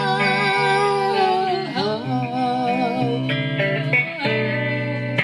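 Live music from a guitar-accompanied song, with long held melody notes that waver in pitch.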